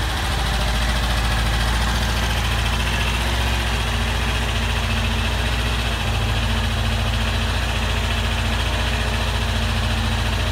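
Vintage BSA motorcycle engine running at a steady high idle, around 1500 to 2000 rpm, fully warmed up.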